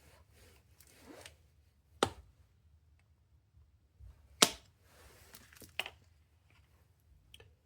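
Hammer tapping a pin punch twice, about two and a half seconds apart, the second strike the louder, driving a small pin into the body of a MAC AH650 pneumatic air hammer. Lighter clicks and handling noises come between the strikes.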